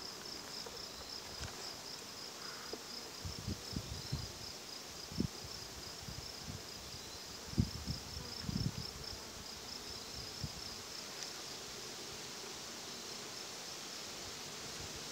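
Honey bees buzzing around open hives, with an insect chirping in a steady, rapid high-pitched pulse throughout. A few soft low knocks come in the middle.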